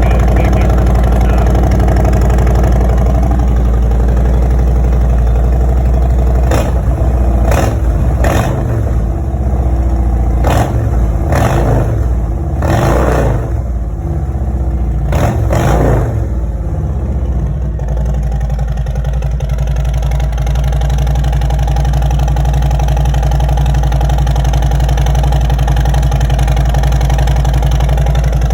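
Harley-Davidson Road Glide V-twin idling through 4.5-inch Shark Road slip-on mufflers with the baffles removed. It is revved with about eight quick throttle blips between roughly six and sixteen seconds in, then settles back to a steady idle.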